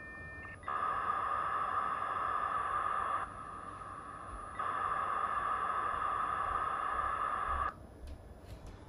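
US Robotics V.Everything 56K modem's speaker playing a V.34 dial-up handshake: a few short steady tones, then two stretches of loud hissing modem noise of about three seconds each with a quieter gap between. It cuts off suddenly near the end as the modems connect at 33.6 kbps, followed by a few faint clicks.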